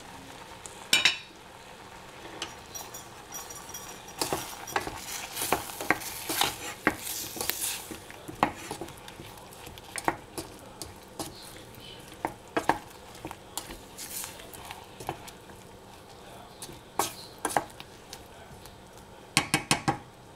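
Stainless steel saucepan lid lifted off with a clank about a second in, then a wooden spoon stirring cut strawberries and apricots in the saucepan, knocking and scraping against the pan. A quick run of sharp knocks comes near the end.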